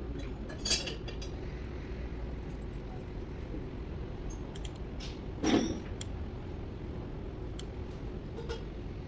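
Two short metallic clanks, one about a second in and a louder one near the middle, from a long breaker bar and socket on a diesel engine's crankshaft pulley bolt as the engine is turned over by hand. A steady low workshop hum runs underneath.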